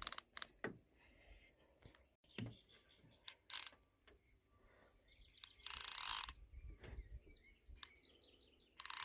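Baitcasting reel's drag giving line in two short buzzing bursts, about six seconds in and again near the end, as a hooked tilapia rendalli runs. Between them come scattered light clicks and faint bird chirps.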